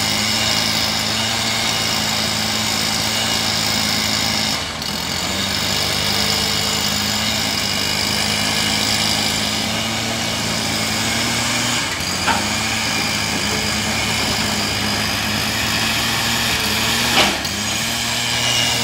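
Excavator's diesel engine running steadily at a constant pitch, dropping briefly a few times as the hydraulics take load, with a short sharp knock near the end.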